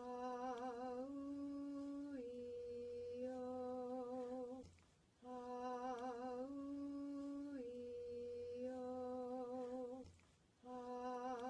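A single voice slowly chanting the vowel sequence "Ah-oo-ee-oh", each vowel held about a second on a near-steady pitch, the "oo" a step higher than the rest. The chant is sung through twice, with a short breath pause between.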